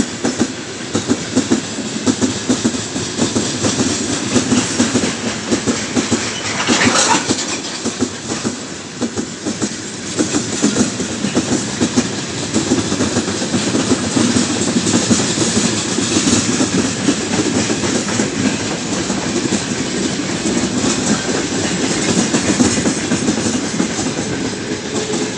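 Freight wagons of a long, heavy mixed freight train rolling past: a steady rumble with wheels clattering over the rail joints.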